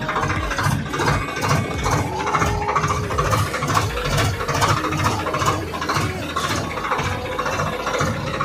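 Swaraj 744 tractor's three-cylinder diesel engine running with an even, rhythmic chug, heard from the driver's seat.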